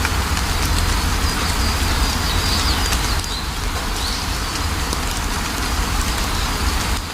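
Steady rain with a deep low rumble under it, and small birds chirping now and then, most of the chirps between about two and four seconds in.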